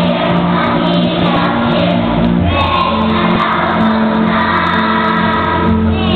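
Children's choir of seven-year-olds singing together, with instrumental accompaniment holding sustained low notes underneath.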